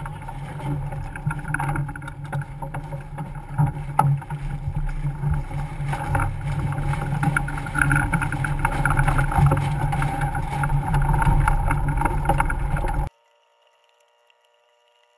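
Wind on the microphone and water rushing past the hull of a racing sailboat under way, with scattered clicks and knocks from deck gear. Near the end it cuts off suddenly to faint, steady electronic tones.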